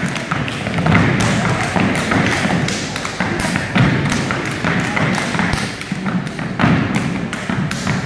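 A dance team stomping and clapping a routine on a wooden gym floor: a quick, uneven run of thumps and slaps from many feet and hands.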